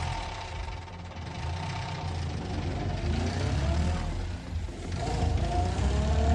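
An engine running with a steady low rumble.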